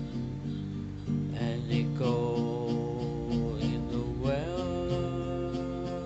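Guitar playing in time with an even beat, about two strokes a second. Long held notes slide up in pitch about two seconds in and again about four seconds in.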